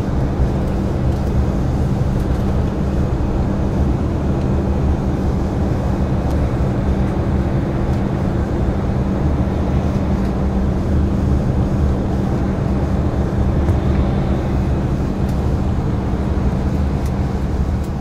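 Jet airliner heard from inside the cabin in flight: a steady drone of engine and airflow noise with a low, even hum underneath.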